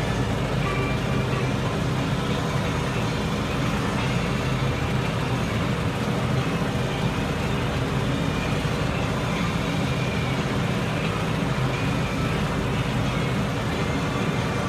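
Tractor engine and hay mower running steadily under load while cutting standing grass, heard from inside the tractor cab.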